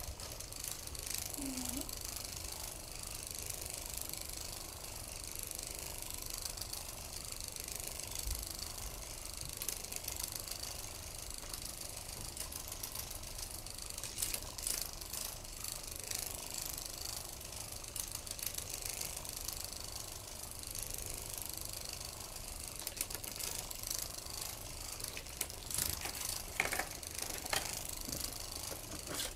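Motorised butterfly cat toy running, its small motor and gears making a steady fine rattling whir, with a few sharper clicks in the middle and near the end.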